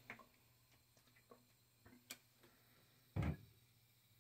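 Mostly near silence, broken by a few faint clicks and one short, muffled thump about three seconds in.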